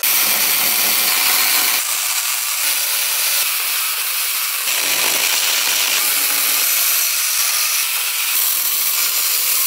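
Corded electric chainsaw running and cutting into a wooden carving block: a steady high-pitched rasping noise that changes in texture several times as the cuts change.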